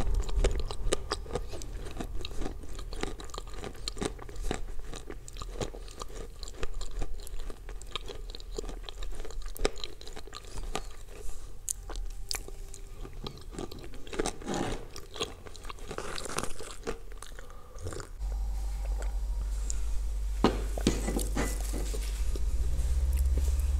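Close-up crunching and chewing of edible Ural clay that has been soaked in blue Uzbek clay, with many small crisp crunches, thicker in the first half and sparser later. A steady low hum comes in about three-quarters of the way through.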